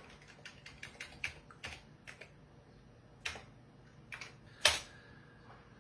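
Typing on the Amiga A1200's keyboard: a quick run of key clicks, then a few separate key presses, the loudest about three-quarters of the way through.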